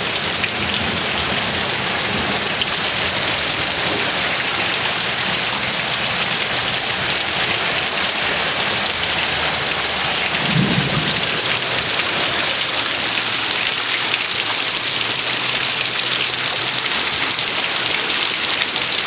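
Heavy thunderstorm downpour: rain pouring down steadily and hard, an even, unbroken hiss of rain on a roof and concrete.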